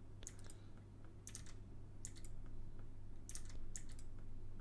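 Computer keyboard keys clicking in about five short, quick clusters, over a faint steady low hum.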